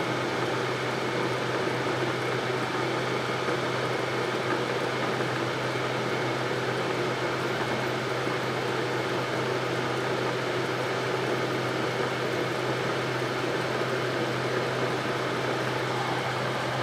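Cylindrical grinder workhead motor running steadily, spinning the collet chuck, with a steady low hum under an even whirr.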